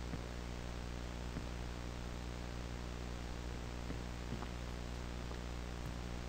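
Steady low hum and hiss, like an old worn soundtrack, with a few faint crackles scattered through it.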